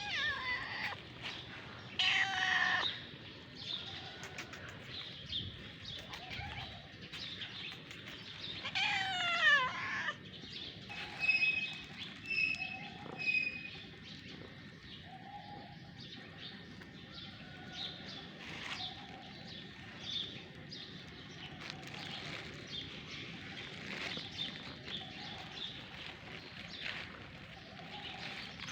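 A cat meowing: two loud, drawn-out meows, one about two seconds in and another about nine seconds in, with quieter small sounds in between.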